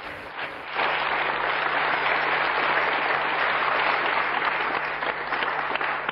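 Studio audience applauding: a dense, steady clapping that dips briefly near the start and then swells back into hearty, sustained applause.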